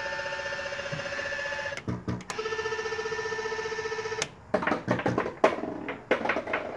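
Arcade game's electronic sound effects: a steady warbling, trilling tone, then a second, lower one about two seconds in, followed near the end by a quick jumble of choppy electronic sounds. This is typical of the game's timer warning to hurry up before it dumps the ball.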